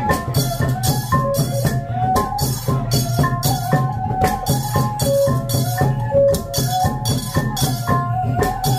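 Khmer chhay-yam music: drums and cymbal-like percussion keep a steady, regular beat under a short melody that steps up and down and repeats.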